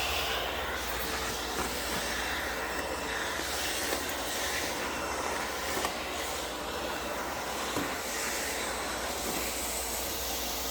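Vacuum cleaner running steadily, a broad hiss with a faint steady hum, with a few light knocks along the way.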